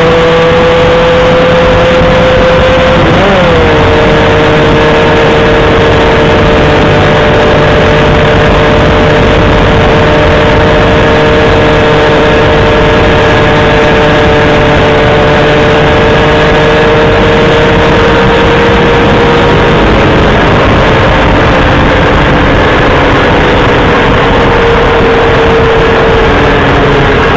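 A vehicle engine running at a steady, high-pitched speed over constant noise, with a quick dip and recovery in pitch about three seconds in and a slight easing of pitch near the end.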